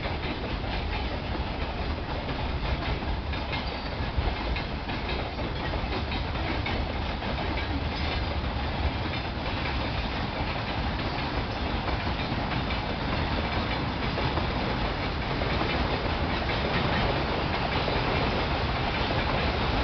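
A train hauled by two 2TE10M diesel locomotives rolls past, its wheels clicking over the rail joints over a steady rumble. The sound grows a little louder toward the end.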